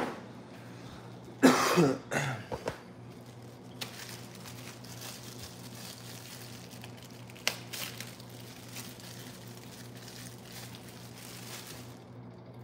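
A man coughs, with the loudest cough about a second and a half in and a couple of smaller ones right after. A faint steady hiss then follows, with a single click in the middle, and it stops shortly before the end.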